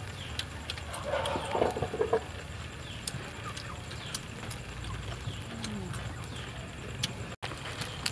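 Animal calls over outdoor ambience: a short cluster of calls about a second in and a single falling call later, with scattered small clicks and crunches of people eating.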